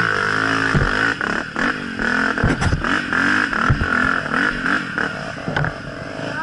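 Dirt bike engine revving up and down again and again under the rider's throttle, with several sharp knocks and clatter from the bike over rough ground.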